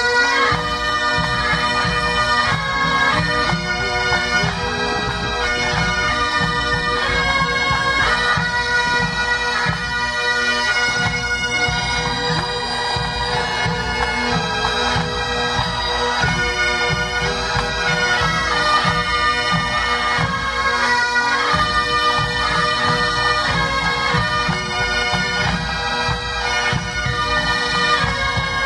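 Massed pipe bands playing: Great Highland bagpipes, their steady drones sounding under the changing chanter melody.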